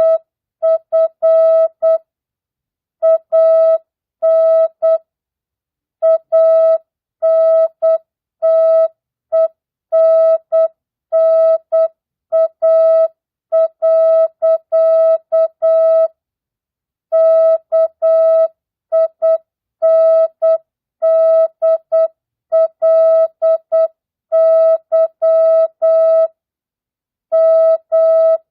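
Morse code (CW) practice tone: a single steady pitch keyed on and off in dots and dashes at 8 words per minute with standard, non-Farnsworth character spacing, sending mixed words, numbers and punctuation. Short gaps separate the characters and longer pauses of about a second separate the words.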